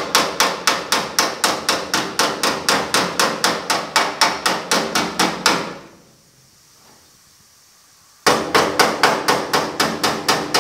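Body hammer tapping lightly and rapidly on the steel cab sheet metal, a dolly held up behind it, about five even taps a second with a short ring to each. The taps are knocking down the high spots around the old antenna hole, kept light so the metal doesn't stretch. The tapping pauses for about two seconds near the middle, then resumes.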